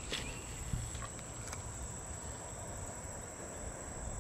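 Steady high-pitched drone of an insect chorus over a low rumble of outdoor background noise, with a few faint clicks in the first second or so.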